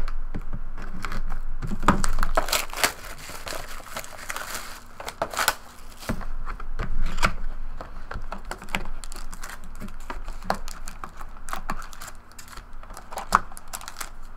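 Hands opening a 2012-13 Panini Preferred Basketball box and handling its contents: cardboard and plastic rustling, with many small clicks and taps.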